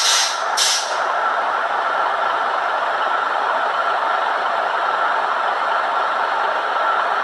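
Bus engine running steadily with a constant whine. Two short hisses in the first second.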